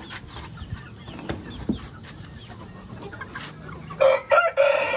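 Light clicks and knocks from a wire cage door being handled, then a rooster crows loudly about four seconds in.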